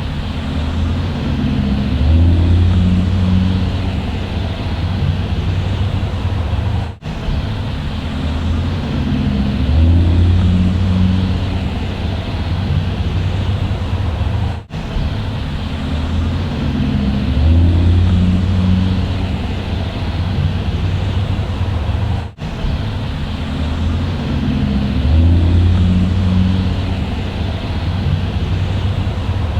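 Bus engine running with a deep, steady drone that swells and eases in a repeating pattern. The same recording loops about every eight seconds, with a brief dropout at each joint.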